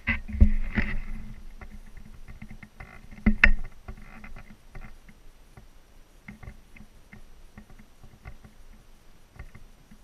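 Handling noise on a hand-held, pole-mounted camera: knocks and rubbing, loudest in the first second and again about three seconds in, then lighter scattered clicks and rustles.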